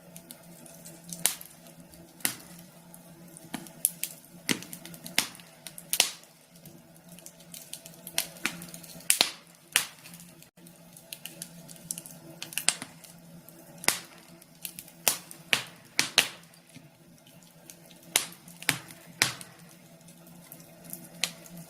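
Wood fire in a fireplace crackling, with irregular sharp pops about one or two a second over a steady low hum.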